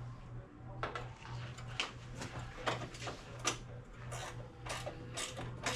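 Light clicks and clinks of hand tools and bolts during suspension work, irregular and about one or two a second, over a steady low hum.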